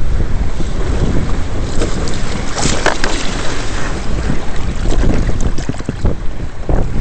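Wind buffeting the microphone with heavy low rumbling, over water rushing and splashing as a Hobie Adventure Island sailing trimaran drives through 2 to 3 ft chop. A louder hiss of spray comes a little under three seconds in.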